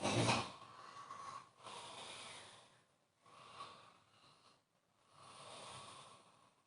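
A person snoring in their sleep: a loud snort at the start, then three more noisy, hissing breaths about a second and a half apart.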